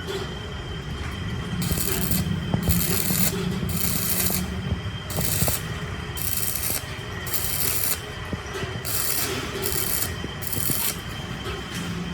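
Rasping strokes of filing against the bearing seat of a gearbox main shaft, about one a second, over a steady machine hum.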